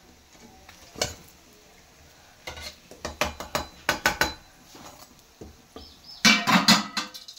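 A cooking utensil clinking and knocking against a ceramic plate and metal pan as fried samosas are taken out of the ghee and set down: one knock about a second in, a run of sharp clicks around three to four seconds, and a louder clatter near the end.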